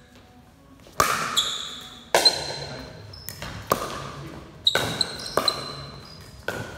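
Pickleball paddles hitting a plastic pickleball in a quick rally: about nine sharp pops at uneven spacing, starting about a second in, each ringing out and echoing in the big hall.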